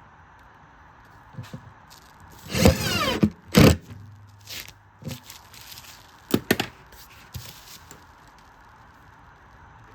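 Scattered knocks, scrapes and clicks of hands and tools working on a loudspeaker cabinet, the loudest cluster between about two and a half and four seconds in and another sharp pair of clicks about six and a half seconds in.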